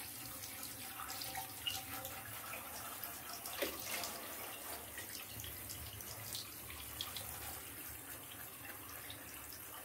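Handheld shower spraying water onto a wet cat in a bathtub, a steady hiss of running water. One brief louder sound stands out about three and a half seconds in.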